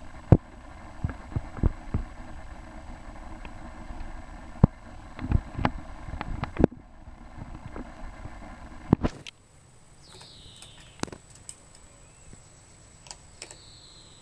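Knocks and clicks of a handheld camera being handled, over a steady low rumble. About nine seconds in the rumble cuts away, and two short, high, falling chirps follow a few seconds apart.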